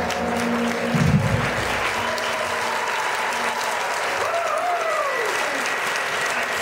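Theatre audience applauding as the band's last notes end about a second in. A single voice in the crowd briefly calls out, rising and falling, midway through.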